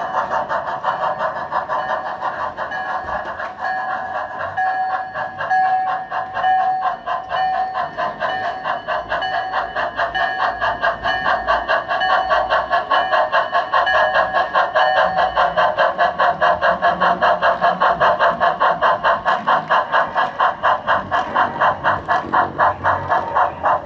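Steam locomotive chuffing from an O scale model steam locomotive, a fast even beat of about five chuffs a second that grows louder about halfway through.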